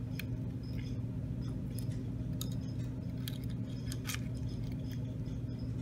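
Small metallic clicks and clinks of coil wire and a screwdriver being handled on the deck of a rebuildable dripping atomizer, scattered through, over a steady low hum.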